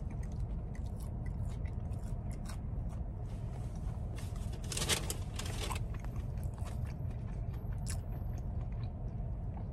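A person chewing a mouthful of chicken sandwich close to the microphone, with small scattered mouth clicks and a short louder rustle about five seconds in, over a steady low hum in a car cabin.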